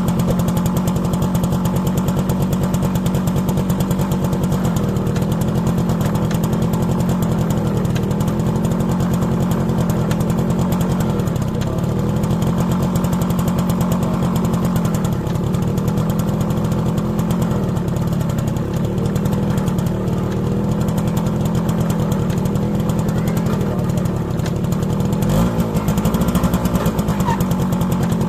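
Small single-cylinder-sounding motorcycle engine running steadily, its pitch sagging slightly and recovering every couple of seconds.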